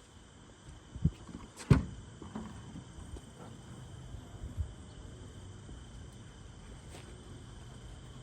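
A few scattered knocks and clatters, the loudest about a second and a half in, over a faint steady hum.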